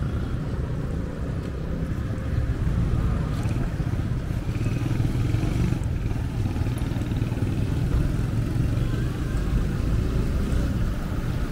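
Street traffic: motorcycle and car engines running past, with a steady low rumble.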